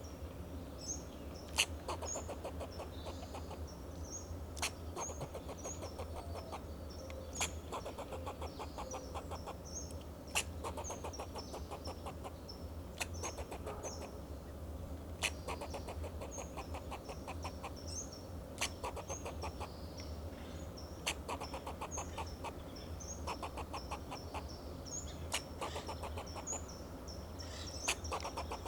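Fox squirrel giving its alarm call: repeated bursts of rapid clucking barks, each about a second long, with a sharper single bark every few seconds.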